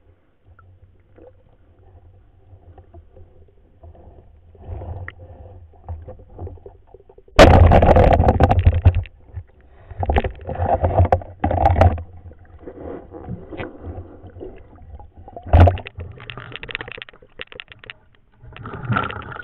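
Water splashing and bubbling around a submerged camera as a spearfisher moves and surfaces. It comes in loud bursts over a low rumble, the loudest starting suddenly about seven seconds in and lasting over a second.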